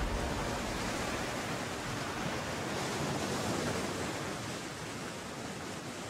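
Steady rushing wash of sea surf, slowly fading.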